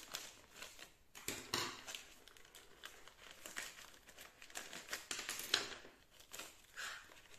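Plastic packaging bag of a diamond-painting toolkit crinkling as it is handled and tools are pulled out of it, in irregular faint crackles with louder bursts about a second and a half in and again about five and a half seconds in.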